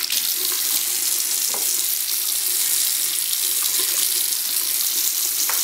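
Bathroom sink tap running steadily into a porcelain basin. The water splashes over a hand and then into a small plastic measuring cup held under the stream.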